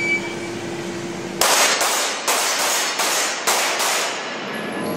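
A quick string of about seven pistol shots at irregular spacing of roughly a third to half a second, each crack ringing off the walls of the indoor range, typical of a Steel Challenge string fired at steel plates.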